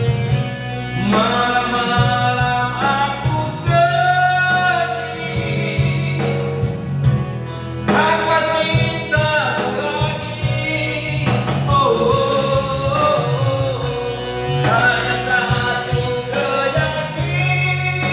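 A song: a voice singing a melody over instrumental backing with a steady bass line.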